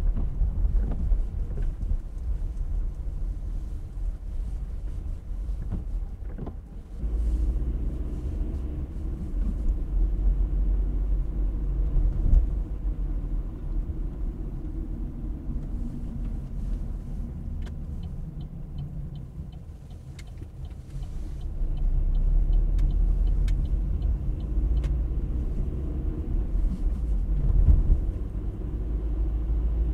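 Car driving on a road: a steady low rumble of engine and tyres, dipping briefly then swelling again about two-thirds of the way through. Around the same time there is a run of faint, quick ticks.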